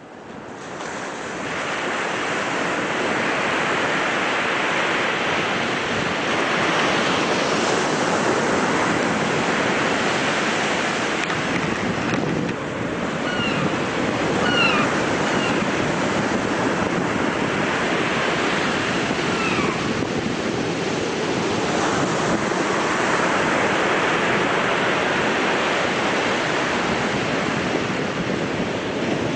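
Heavy sea surf breaking and washing in continuous surges, with wind on the microphone. The sound fades in over the first couple of seconds, and a few short, falling gull calls sound about halfway through.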